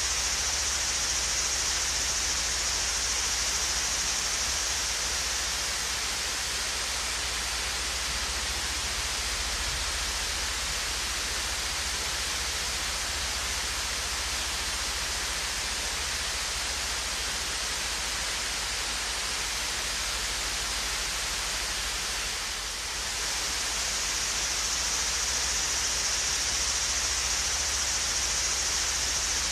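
Swayze Falls, a small waterfall, pouring steadily: a continuous rushing hiss of falling water. The high hiss softens about six seconds in and comes back after a brief dip about three-quarters of the way through.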